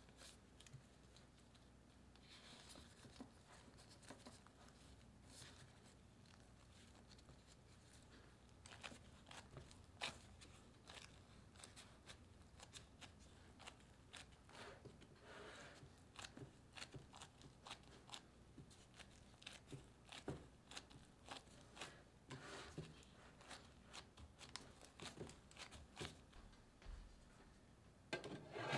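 Faint handling sounds of dough rolls being pressed into a metal loaf tin: soft crinkling of a disposable plastic glove and squashing dough, with light scattered clicks and taps against the tin. A louder rustle starts right at the end.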